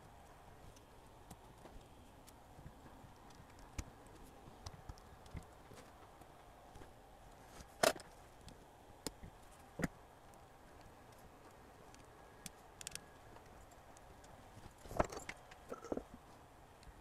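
Scattered small clicks and taps of hands handling the metal tape-transport mechanism of an opened cassette deck during a belt replacement. The sharpest clicks come about eight seconds in and near the end, where a quick cluster of taps follows.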